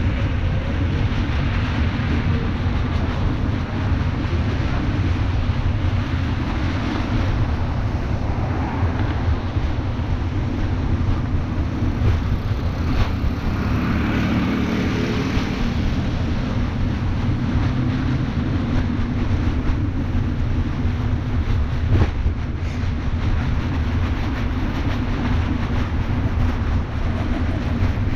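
Wind rumbling steadily on the microphone of a moving bicycle, over a hiss of rain and wet street, with two swells that fit traffic passing.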